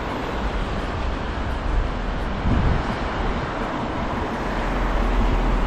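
City street traffic noise: a steady wash of passing vehicles with a deep low rumble, swelling briefly louder about two and a half seconds in.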